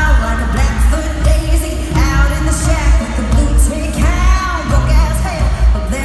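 Live country-pop band music with a woman singing lead over electric guitars and a heavy, pulsing bass, amplified through an arena sound system.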